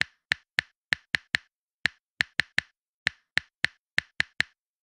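Typing-style click sound effect: about sixteen short, sharp clicks in quick uneven runs, with a short pause about one and a half seconds in and another near three seconds, and dead silence between clicks.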